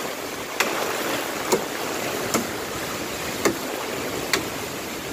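Steady hiss of typhoon wind and rain, with a brief sharp tap about once a second.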